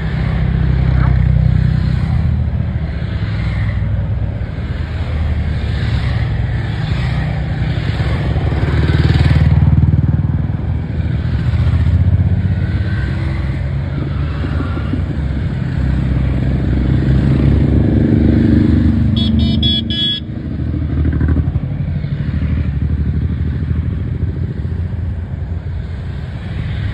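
A steady stream of motorcycles riding past, their engines rumbling together, one rising in pitch as it passes close. A brief high blare sounds about two-thirds of the way through.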